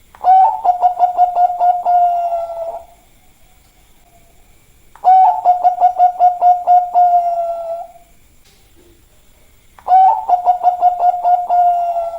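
Zebra dove (Bangkok perkutut) singing: three bouts of its staccato cooing song about five seconds apart, each a quick run of short coos at one steady pitch lasting two to three seconds and trailing off at the end.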